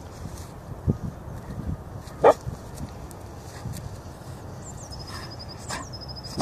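A dog yelps twice, briefly: a sharp yip about two seconds in and a weaker one near the end.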